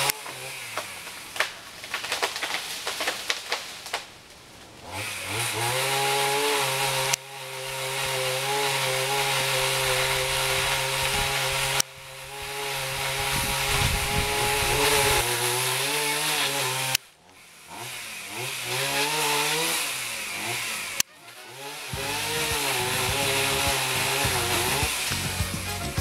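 Chainsaw running at high revs and cutting wood, its pitch dipping and recovering under load. The sound breaks off abruptly several times between short takes.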